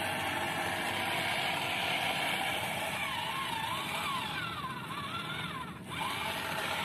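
Small electric geared motor of a miniature combine harvester model running steadily as it drives the model down the loading ramps, a whine wavering up and down in pitch from about three seconds in. It drops out briefly near six seconds and picks up again.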